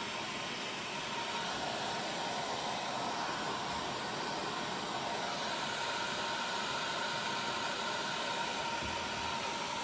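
Heat gun blowing steadily: an even rushing hiss with a faint steady whine, used to warm a fresh clear coat of epoxy resin so it flows.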